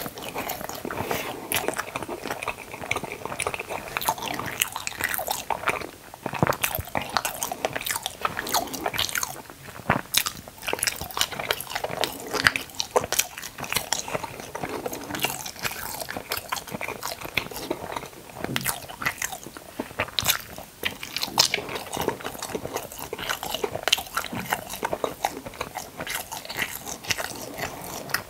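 Close-miked eating: a person biting and chewing crunchy food, a dense, irregular run of sharp crunches.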